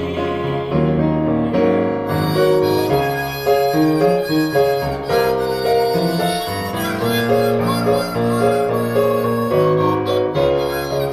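Recorded music played back through Yamaha NS-3000 bookshelf speakers: an instrumental break between sung lines, with piano and a sustained lead melody in a reedy, harmonica-like voice.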